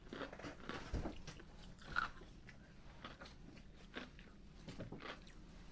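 Faint, scattered crunches of someone chewing a crunchy snack.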